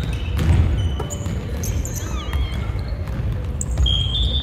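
A basketball bouncing on a hardwood gym floor during a game, with a few sharp thuds and sneakers briefly squeaking on the court.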